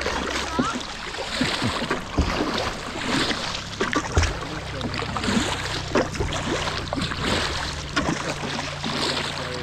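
Kayak paddle strokes splashing and dipping in shallow, fast-flowing river water, over the steady rush of the current running across stones.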